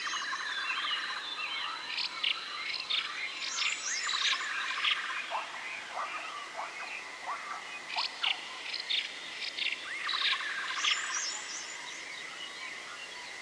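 Forest ambience of many birds chirping and calling in overlapping bursts, busiest a few seconds in and again past the middle, over a steady high-pitched drone.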